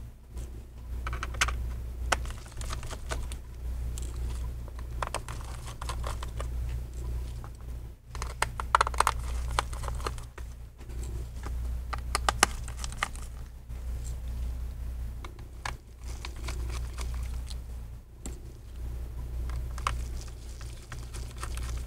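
Irregular small clicks and light scrapes of a P5 pentalobe screwdriver working the bottom-cover screws out of a MacBook Air's aluminium case, over a steady low hum.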